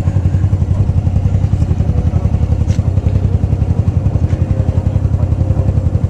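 Motorcycle engine idling, loud, with a steady, even low pulse.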